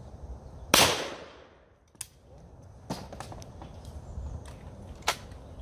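A single loud shotgun shot about three-quarters of a second in, its report ringing out over about a second. Several fainter sharp cracks follow later, one near the end.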